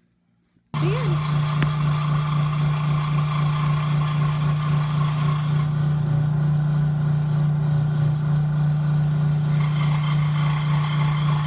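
Bench-top power saw running steadily with a strong low hum while cutting thin mahogany underlay (luan plywood) into paddle blades. The sound starts abruptly a moment in.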